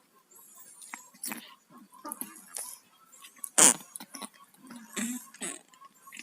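A sleeping cat with a cold breathing noisily through a blocked nose: irregular snoring and snuffling, with one loud, short burst about three and a half seconds in.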